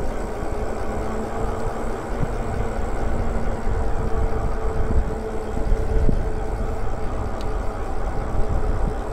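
Wind rumble on the microphone and tyre noise from a motorcycle-style e-bike riding along a paved street, with a faint steady whine from its electric motor through the middle.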